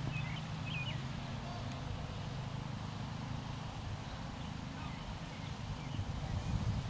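Outdoor ambience: a steady low rumble, with a couple of faint bird chirps in the first second.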